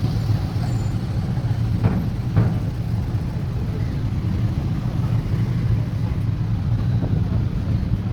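Steady low engine rumble with a noisy mechanical wash over it.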